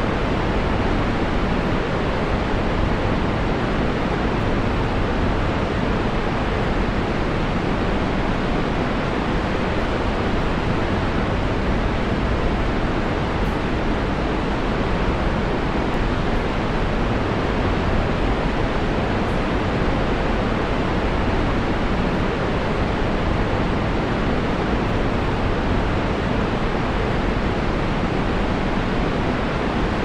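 Niagara Falls' plunging water making a steady, unbroken rush of noise.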